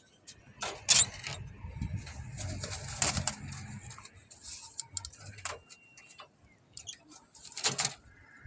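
Barbary doves (merpati puter) cooing low, mixed with rustling and sharp clicking knocks about a second in, about three seconds in, and again near the end.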